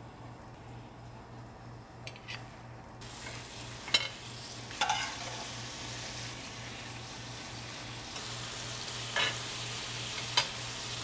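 Tteokgalbi patties and their sauce spooned onto a preheated cast iron sizzling plate over a gas flame: the sauce starts sizzling about three seconds in and keeps up a steady sizzle, with several sharp clicks of a metal spoon against the plate.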